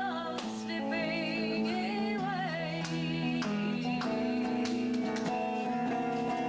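Music: a song with a singer's wavering, sustained voice over guitar and sustained keyboard notes, at a steady level.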